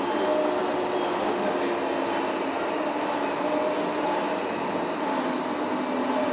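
Steady whirring whine of radio-controlled model excavators' motors and hydraulics as they work, with several held tones over a mechanical hum.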